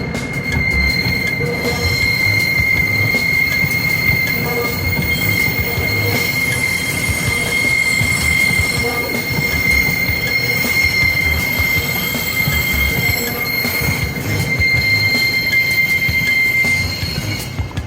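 Hitachi-built electric commuter train rolling slowly through a rail yard, its wheels squealing with one steady high tone over a low rumble of wheels on rail. The squeal fades out just before the end.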